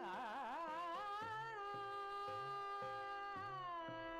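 Soft instrumental background music in an Indian classical style: a steady drone under a bending, ornamented melody line, with a soft low beat about every half second.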